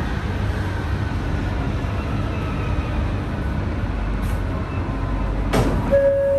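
An ART200 metro train running with a steady rumble, while a faint motor whine falls slowly in pitch as the train slows. A sharp clunk comes near the end, followed by a steady chime tone.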